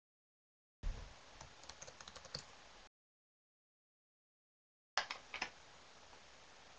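Computer keyboard typing in two short spells of key clicks, one about a second in and another near the end.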